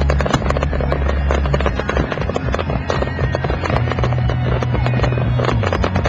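Fireworks crackling and banging in rapid succession over loud music with long held bass notes.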